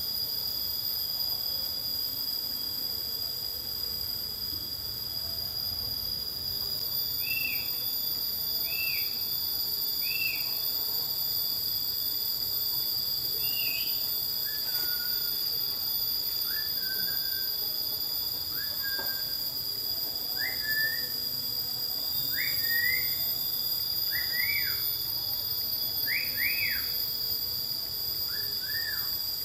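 A steady, high-pitched insect chorus, several shrill tones droning together. From about a quarter of the way in, a bird calls over it in short chirped notes, one every second or so, with the notes growing stronger towards the end.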